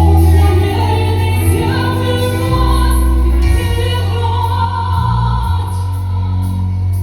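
Music: a woman's voice singing long, gliding notes over a deep, held bass line.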